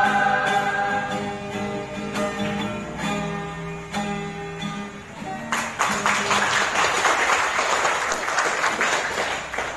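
A small choir with acoustic guitar holds the final chord of a song, which dies away about halfway through. Applause then breaks out and runs almost to the end.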